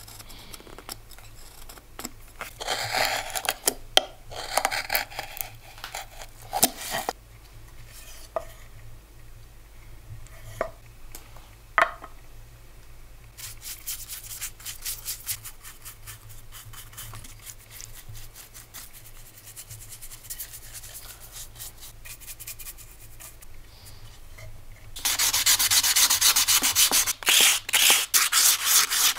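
A carving knife pares small cuts in a wooden bowl's handle, with scraping strokes and sharp little clicks. Then a brush spreads black stain inside the bowl with a faint steady hiss. About 25 seconds in, loud rapid rubbing strokes start on the stained bowl.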